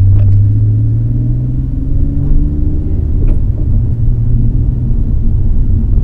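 Nissan Skyline GT-R (BNR32) driving, its RB26DETT twin-turbo straight-six engine droning over road rumble. The engine note rises gently over the first two seconds, then holds steady.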